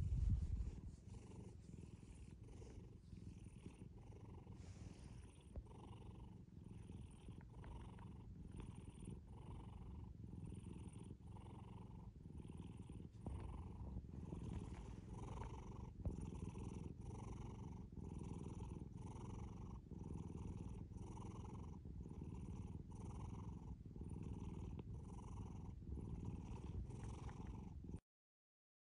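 Domestic cat purring close up, a steady low rumble that swells and fades in even cycles a little faster than once a second as it breathes in and out. There is a brief bump right at the start, and the purring cuts off suddenly near the end.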